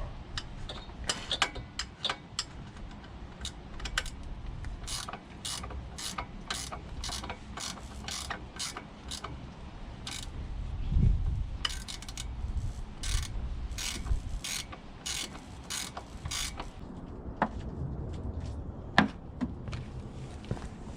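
Hand socket ratchet clicking in runs of even strokes, about two clicks a second, as fasteners are turned, with scattered single clicks before and a low thud in between.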